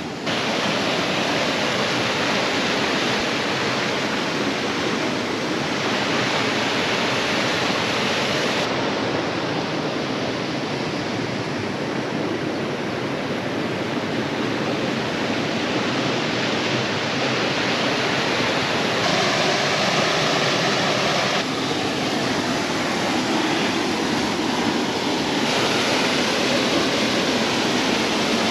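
Waterfall rushing steadily, a dense even roar of falling water. Its tone shifts suddenly a few times.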